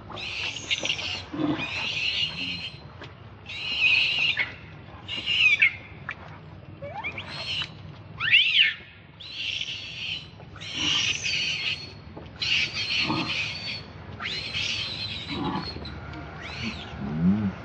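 Infant macaque crying: a run of about ten shrill, high-pitched cries, each under a second long, some sweeping up and down in pitch.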